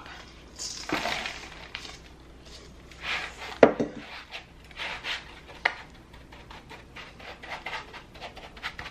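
Moist graham cracker and peanut butter crumbs being scooped from a stainless steel bowl and spread in a baking pan with a metal utensil: soft scraping and rustling, with one sharp clink of utensil on dish about three and a half seconds in, then light repeated tapping and scraping.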